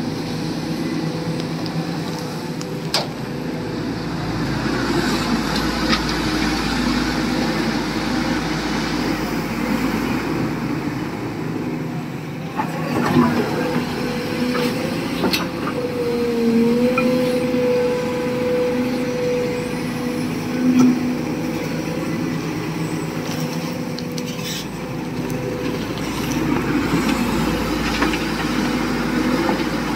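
SANY 225 excavator's diesel engine running steadily, with a few sharp knocks and a high hydraulic whine held for a few seconds about halfway through.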